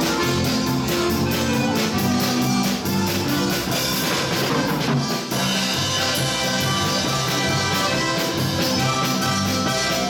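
Live polka band playing, accordions carrying the tune over a steady drum beat.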